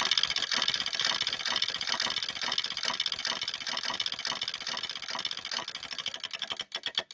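Vibrator sex toy buzzing: a steady, rapid, high-pitched pulsing buzz that cuts off suddenly near the end.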